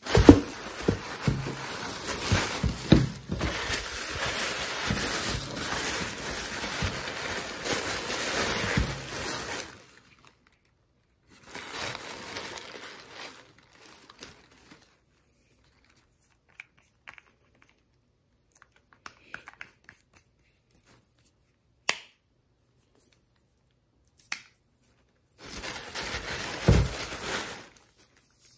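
Tissue paper crinkling and rustling as it is pulled open and handled: one long stretch of about ten seconds, then two shorter bursts later on. A single sharp click comes about three-quarters of the way through.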